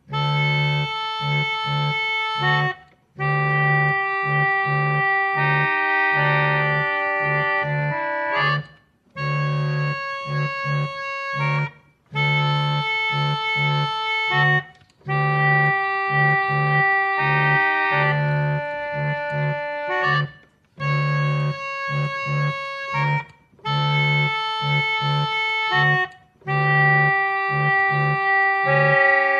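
Organ played in slow, held chords in phrases of about three seconds, each phrase cut by a brief pause, over a steady low bass note.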